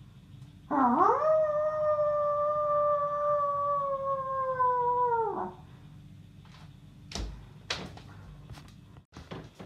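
A person imitating a wolf howl: one long call that swoops up at the start, then holds a high pitch for about four and a half seconds, sinking slightly before it stops. Two sharp knocks follow near the end.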